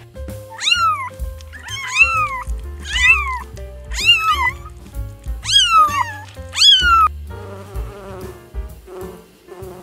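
Kittens meowing: a run of about seven high meows, each rising then falling in pitch. Near the end a bee buzzes.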